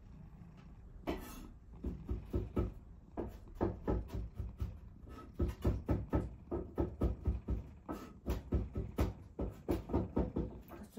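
Kitchen knife chopping boiled carrot on a cutting board: a quick, steady run of knocks, several a second, starting about a second in.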